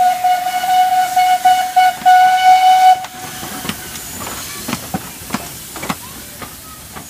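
Steam locomotive whistle sounding one steady blast of about three seconds over the hiss of steam from the open cylinder drain cocks. After the whistle stops, the engine moves off slowly, with steam hissing and sharp exhaust beats about every half second to a second.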